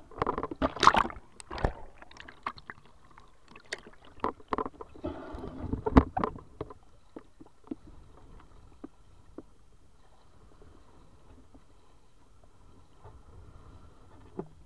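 Sea water splashing and sloshing around the legs of someone wading through shallow water, in irregular loud splashes over the first several seconds. Then it falls to a faint lapping with a few small splashes.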